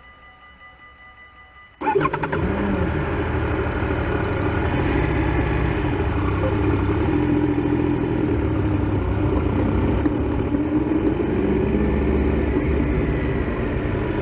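Triumph Tiger Explorer XRx motorcycle's three-cylinder engine starting about two seconds in, then running steadily as the bike pulls away and rides on.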